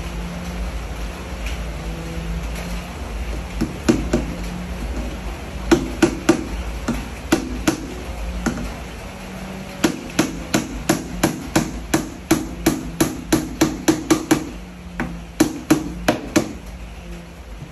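Hammer nailing a plywood box together, wood knocking with each blow. Scattered blows come first, then a quick even run of about three strikes a second, then a last few before it stops.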